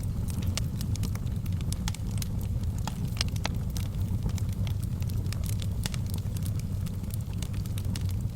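Wood fire crackling in a fireplace: many irregular, sharp pops and snaps, some louder than others, over a steady low rumble of the burning fire.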